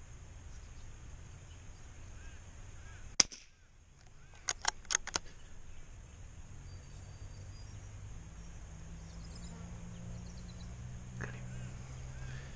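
A single .22LR rifle shot, a sharp crack about three seconds in, followed about a second later by four quick clicks of the bolt being worked to reload.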